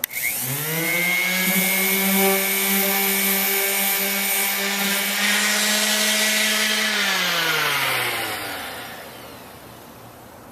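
Craftsman 5-inch random orbit sander (model 11217) with its 2.4-amp motor switched on: the whine rises in pitch as it spins up, runs steadily for about five seconds, then falls in pitch and dies away as it winds down after being switched off.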